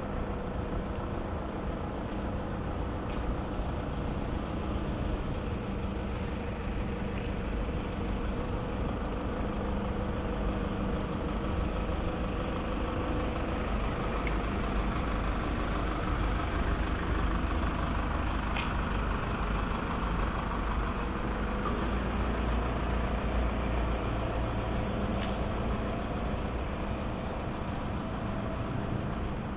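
Steady low hum of a deserted city street at night, a drone of distant traffic and building machinery, swelling slightly about halfway through, with a few faint ticks.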